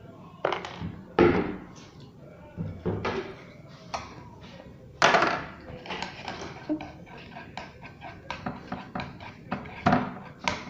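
A spoon knocking and scraping against a bowl in irregular strokes, stirring glue, orange gouache and borax activator as a slime begins to form.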